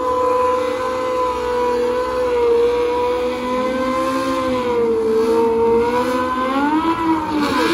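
Race car engine running at high, fairly steady revs. Near the end the pitch swings up and back, then falls away.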